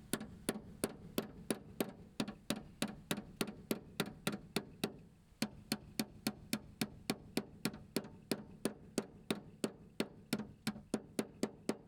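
Hammer blows on a metal bracket edge, flattening it down so the snorkel's mounting tab can sit without interference. Sharp, evenly spaced strikes, about three to four a second, with a brief pause about five seconds in.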